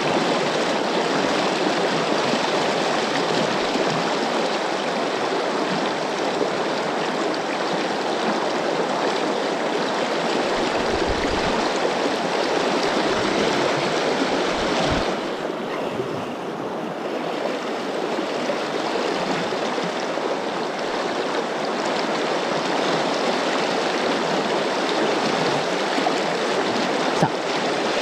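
River rapids rushing steadily around a wading angler, a dense even hiss of fast shallow water. The hiss goes briefly duller a little past halfway, with a few low bumps.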